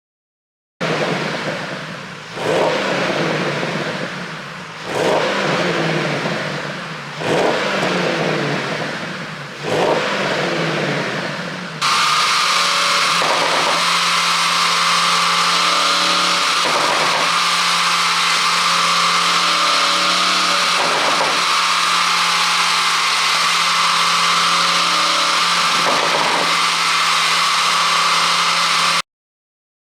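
Porsche Panamera Turbo's twin-turbo V8, running a pop-and-crackle ECU tune, being blipped about five times with each rev falling away, then held at a steady high rpm until it cuts off near the end.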